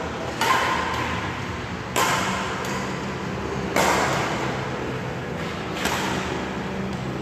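Badminton rally: rackets striking the shuttlecock about every one and a half to two seconds, each sharp crack echoing in the hall.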